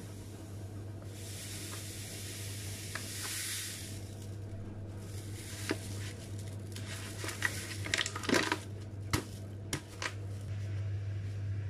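Granulated sugar pouring from a paper bag into a stainless steel saucepan: a soft, steady hiss for the first few seconds. In the second half come crackles of the paper bag and several sharp taps as the last of the sugar is shaken out. A steady low hum runs underneath.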